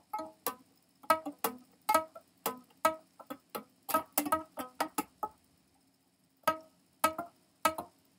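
Improvised guitar playing in short, sharp plucked notes that die away quickly, in an uneven rhythm, with a pause of about a second past the middle.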